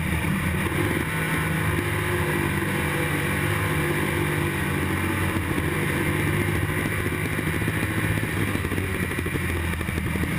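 IMCA stock car's V8 engine running steadily at racing speed on a dirt track, heard from inside the cockpit.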